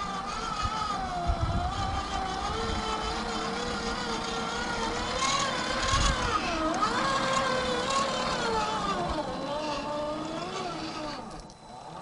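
RC4WD Trail Finder 2 scale crawler's electric motor and two-speed gearbox whining, the pitch rising and falling with the throttle as the truck scrabbles over mud and rocks. Wind buffets the microphone at times, and the whine drops away briefly near the end.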